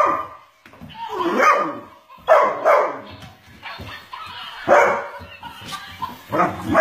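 A Great Weimar, a Great Dane–Weimaraner cross dog, barking several times with short pauses between the barks.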